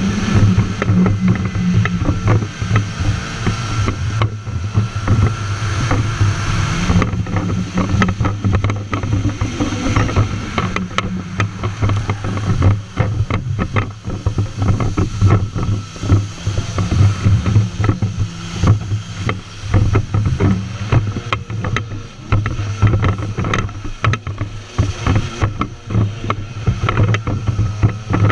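Stand-up jet ski's engine running hard through tight carving turns, a steady drone with its pitch shifting a little as the throttle changes. Water rushes, sprays and slaps against the hull throughout.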